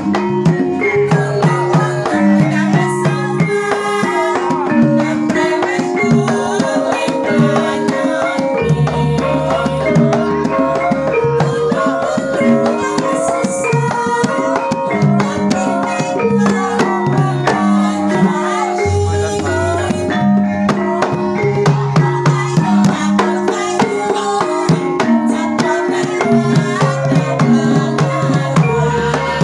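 A campursari ensemble plays a Javanese piece: hand-drum (kendang) patterns over a bass line that steps from note to note, with melodic instruments above.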